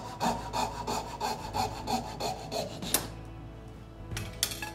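Fret saw with a fine blade cutting a curve through walnut in quick, even strokes, about three a second. The strokes end with a sharp click about three seconds in, as the offcut comes free.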